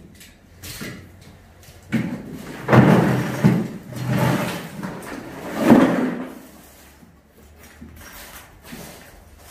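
A run of knocks and clattering, like objects being moved and set down, loudest about three seconds in and again near six seconds.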